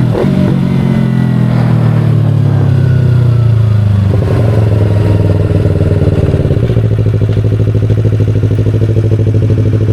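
Yamaha YZF-R25 parallel-twin engine through an SC Project aftermarket exhaust. Its revs fall over the first four seconds or so, then it runs steadily at low revs for the rest.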